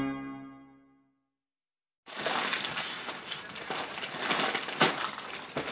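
Synthesizer intro music fading out, then after a second or so of dead silence a crackling, rustling noise with scattered sharp clicks starts up and carries on.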